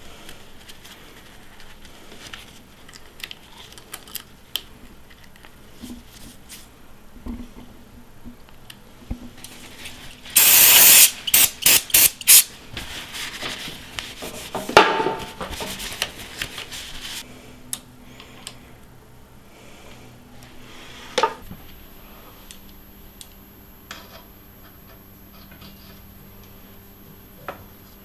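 Tools and bicycle parts being handled during a bike build: scattered small clicks and taps. About ten seconds in comes a loud hiss, followed by a quick run of short hissing bursts.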